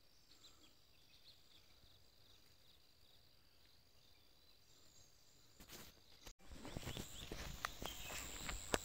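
Faint forest ambience: a steady high insect drone with a few faint bird chirps. After an abrupt break about six seconds in, it turns louder, with footsteps crunching on dry grass and leaves over a high insect buzz.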